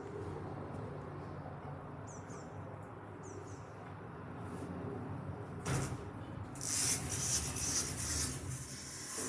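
Passenger lift car travelling, a steady low hum of the lift running with a few faint high chirps. A knock about six seconds in is followed by a couple of seconds of hissy rattling.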